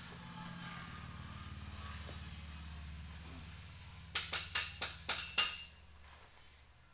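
About six sharp metal-on-metal strikes in quick succession, roughly four a second, each ringing briefly, from work under a heavy truck's front end. A low steady hum runs beneath them and stops just after the strikes.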